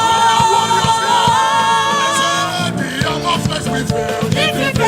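Live gospel worship music: singers hold a long note over the band, then the drums beat steadily under shorter sung phrases from about halfway in.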